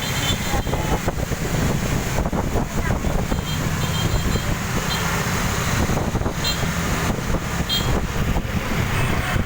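Road traffic going past: a steady low engine rumble with road noise.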